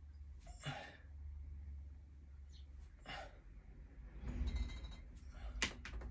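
A man's short, breathy exhales, about one every two and a half seconds, as he bows, prays and punches through the 1,000-punch routine, over a steady low hum. A sharp slap of palms coming together near the end is the loudest sound.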